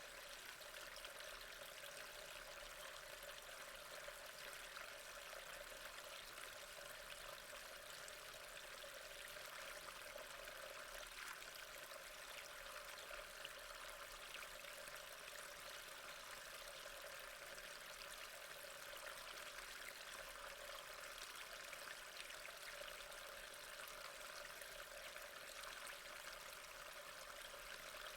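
Steady rainfall, an even, unbroken hiss at a low level.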